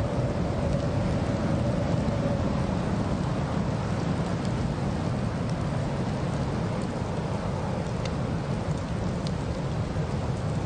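Steady low rumble of a car driving on a snowy road: tyre and road noise with wind, a faint howling tone that fades out over the first few seconds.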